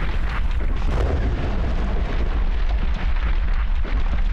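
Quarry blast in a rock face: a sustained deep rumble of the explosion and the shattered rock slumping forward down the slope, with crackles over it.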